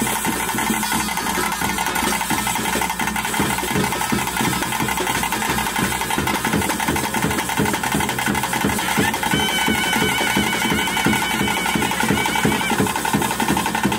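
Bhuta kola ritual music: fast, steady drumming with wind instruments. A held, piping tune comes in clearly about nine seconds in.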